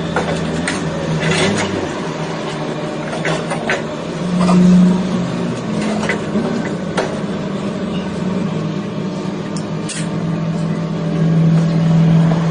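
A motor running with a steady hum that swells now and then, with scattered sharp clicks.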